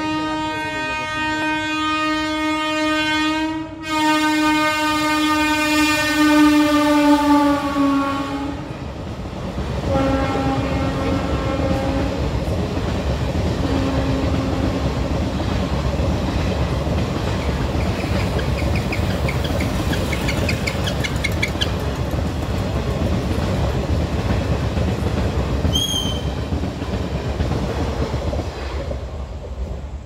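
Locomotive horn sounding one long continuous blast for about eight seconds, broken briefly around four seconds in and dropping in pitch as the locomotive passes. A few shorter honks follow while the express train's coaches rumble and clatter through the level crossing at speed.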